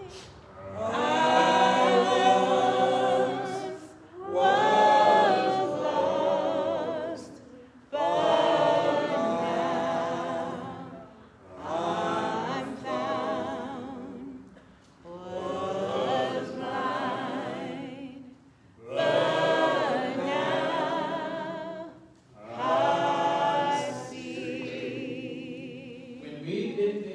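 A choir singing in long phrases of three to four seconds, each followed by a short break, with voices wavering in vibrato; the last phrase is softer.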